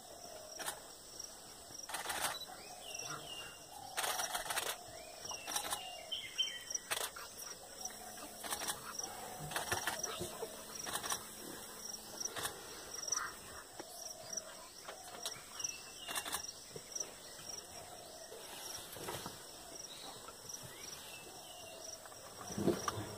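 Forest ambience: insects chirping in a steady, even pulse, with scattered short bird chirps and occasional sharp clicks.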